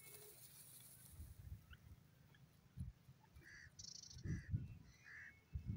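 Grey francolin dust-bathing in loose soil: faint scuffling with a few low thumps, and three soft, short calls in the second half.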